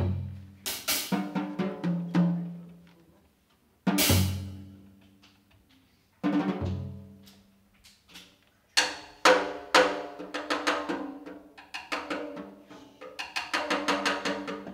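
Live jazz combo of drum kit, piano and upright bass playing: three sharp accented ensemble hits with cymbal crashes, each left ringing and dying away. About nine seconds in it settles into busier steady playing.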